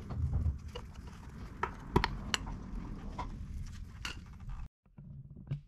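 Flathead screwdriver and hands working the drain screw on a Yamaha 2.5 hp outboard's gear case: scattered light clicks and metal knocks over a low rumble. The sound cuts off abruptly for a moment near the end.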